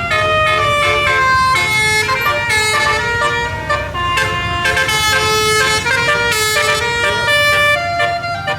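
Bus telolet horn, a 12-note set of air-horn trumpets, playing a tune in quick steps from note to note, often several notes sounding together, over a low rumble.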